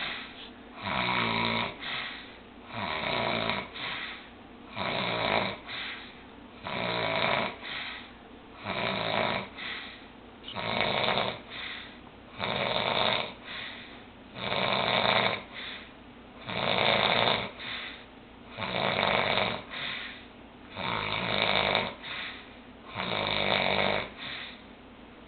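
Snoring: about twelve loud rasping snores at a steady pace of roughly one every two seconds.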